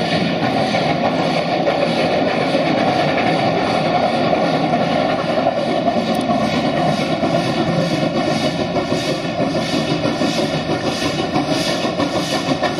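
Steam locomotive running, a steady rushing noise with regular chuffs of about two a second coming through more clearly in the second half.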